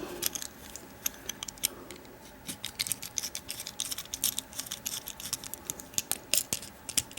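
Small, irregular metal clicks and scrapes as a cap tool is worked against a Schlage deadbolt's lock cylinder to remove its cylinder cap.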